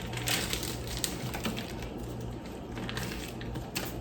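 Knife cutting raw salmon into cubes on a cutting board: irregular soft knocks and taps as the blade goes through the fish and meets the board, over a steady low hum.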